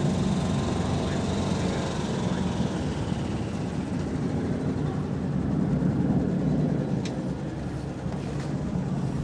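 A steady engine drone, with a faint high whine that falls in pitch over the first few seconds.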